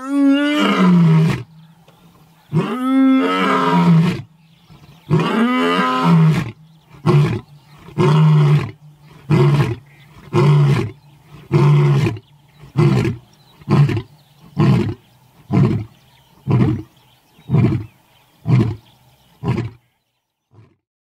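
Male lion's roaring bout: three long, full roars, then about a dozen shorter roars roughly a second apart that grow shorter until they stop.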